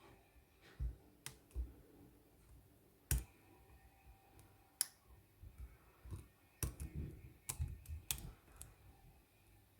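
Hook pick and tension wrench working in a Lockwood marine padlock's keyway: faint, irregular sharp clicks and taps as the pick lifts the pins, becoming more frequent over the last few seconds.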